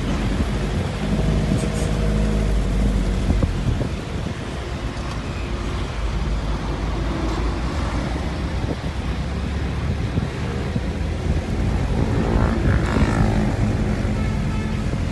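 Car driving along a road: steady road and engine noise with wind rumbling on the microphone. The noise swells briefly near the end.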